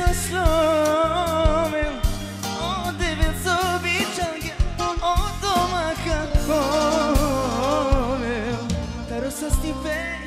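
Band music with a man singing into a microphone, his voice wavering with heavy vibrato over a stepping bass line and regular drum beats.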